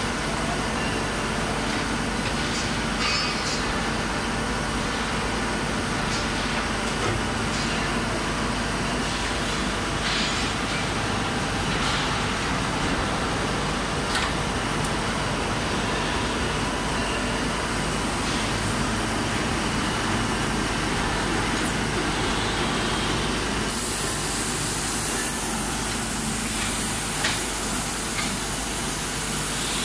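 Hot spring coiling line running, a steady industrial machinery din with occasional clicks and knocks as a red-hot steel bar is fed through its roller conveyor. About three quarters of the way through, a strong hiss starts and carries on.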